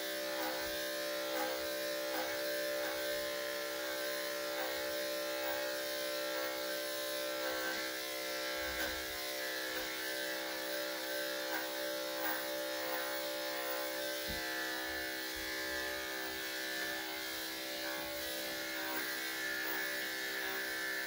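Corded electric dog clippers running with a steady buzz as they shave through a Cocker Spaniel's curly coat.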